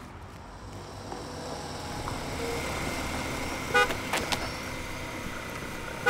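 A motor vehicle comes closer, its noise building, then gives one short horn toot a little before four seconds in.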